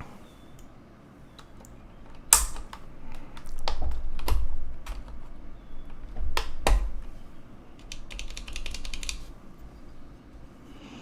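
Keycaps being worked off and onto a computer keyboard's switches: several separate sharp clacks, then a quick run of keystrokes near the end.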